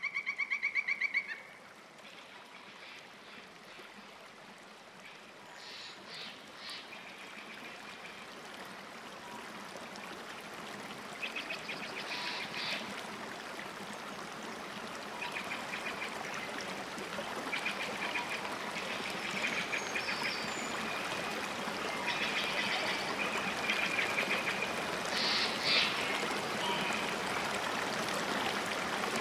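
Running water, a steady hiss that grows gradually louder, with short rapidly pulsed animal calls every few seconds. The loudest call comes right at the start.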